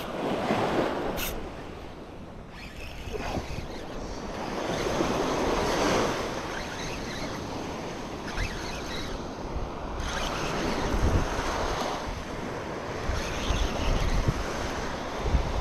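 Small waves breaking and washing up on a sandy beach, the surf swelling and easing every few seconds, with wind gusting on the microphone.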